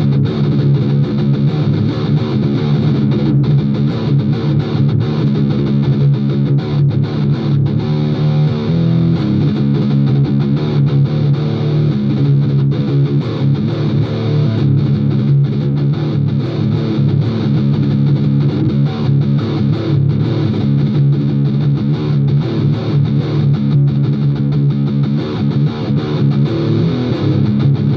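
Music built on a distorted electric guitar, playing without a break, with heavy sustained low notes.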